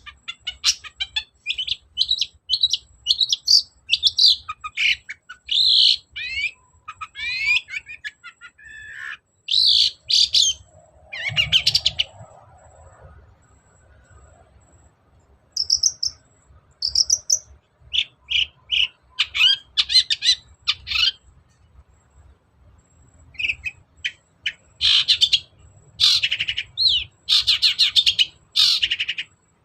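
Long-tailed shrike (cendet) singing in rapid, varied bursts of high chirps, trills and quick pitch glides, broken by short pauses. This full-volume song is played to provoke other shrikes into answering.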